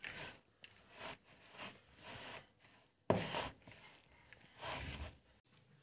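A hand squeezing and turning a dry mix of grated potato, chopped onion and chickpea flour in a plastic bowl: faint, irregular rustling strokes, the loudest about three seconds in.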